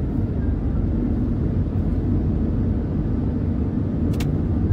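Steady road and engine rumble of a moving car, heard from inside the cabin, with one short click about four seconds in.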